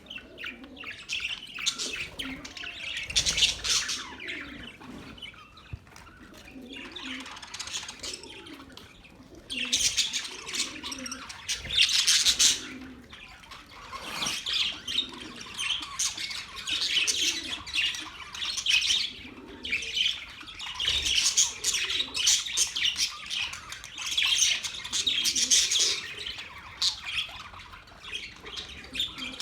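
Several budgerigars chirping and chattering, a dense stream of quick, high chirps and squawks that eases off briefly a quarter of the way in and again around the middle.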